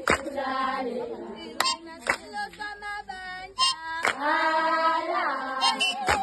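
Female voices singing a Zulu dance song, with sharp percussive hits at uneven intervals, several a few seconds apart.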